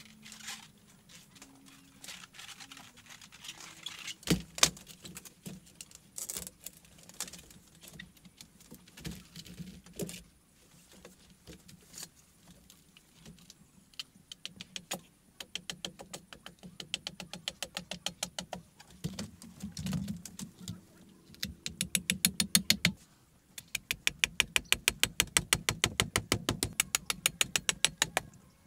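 Scattered knocks and clatter of bamboo, with one sharp knock about four seconds in. From about halfway there are long runs of fast, even clicking strokes of a hand tool working bamboo, densest near the end.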